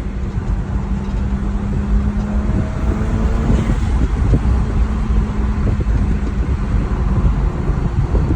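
A BMW 335i's N54 twin-turbo straight-six driving on the road, heard as a steady low drone mixed with road and wind rumble. The low hum gives way and the sound grows a little louder about three and a half seconds in.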